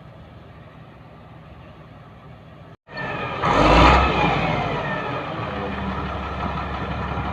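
Diesel engine of a freshly overhauled Caterpillar D6D bulldozer: a steady low engine hum, then after a cut the engine revs loudly and winds back down, its whine falling, into a steady idle.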